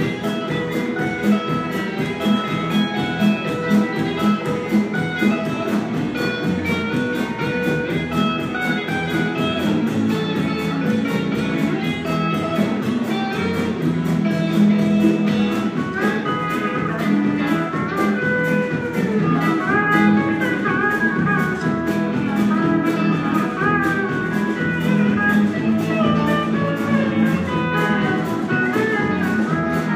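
Live country band playing an instrumental, with electric guitars and drum kit behind a steel guitar; from about halfway through, the steel guitar's notes slide and bend in pitch.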